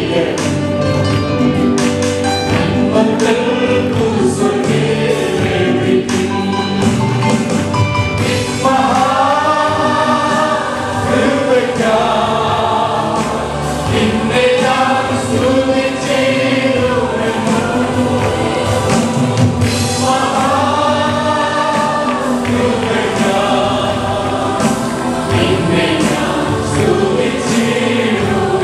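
Congregational worship singing: a group of voices singing a gospel song together over instrumental backing with a steady beat.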